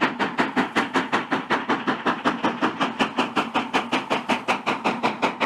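Steam locomotive running at speed, its exhaust chuffing in a fast, even rhythm of about six beats a second.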